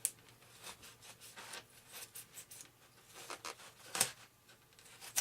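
Irregular short scraping and rubbing strokes of a foam airframe being cut out to make room for a servo wire, with a sharper click about four seconds in.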